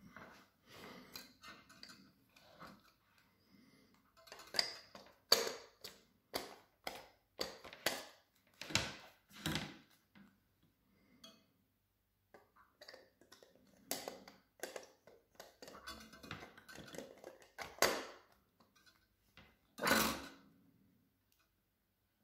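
Plastic clicks, knocks and rubbing as a SilverCrest hand blender's motor unit is handled and twisted into its plastic lock-on attachment. There is one louder knock near the end.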